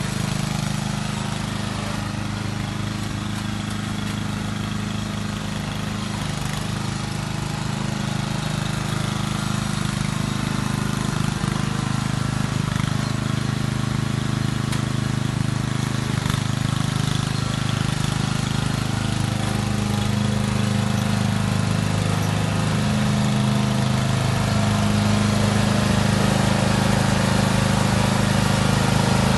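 Lawn mower engine running steadily, growing slowly louder toward the end.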